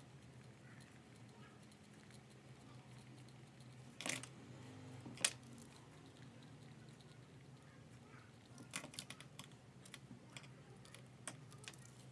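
Handwriting with a pen on a paper notes sheet: faint scratching with scattered sharp clicks and taps of the pen, the loudest a single click about five seconds in and a cluster near nine seconds, over a faint low hum.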